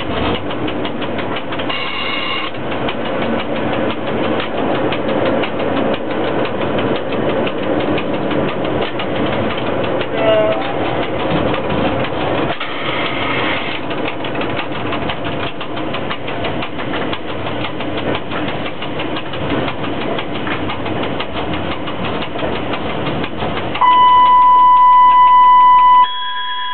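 Cab noise of a ChS4T electric locomotive running with a passenger train: a steady rumble and rattle with fine, rapid clicking. Near the end a loud, steady high-pitched tone sounds for about two seconds and cuts off abruptly.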